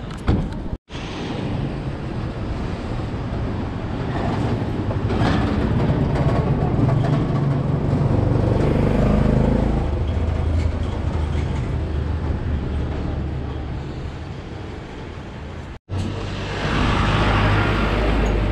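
City street ambience: a steady low rumble of traffic and street noise. It drops out for an instant twice, about a second in and near the end.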